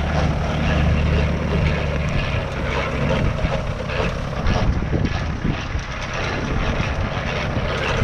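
Tractor engine running, a low steady hum that is strongest in the first two seconds and then eases.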